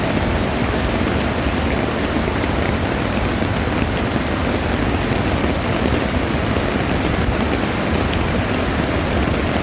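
Rain-swollen mountain valley stream rushing in a loud, steady torrent of water.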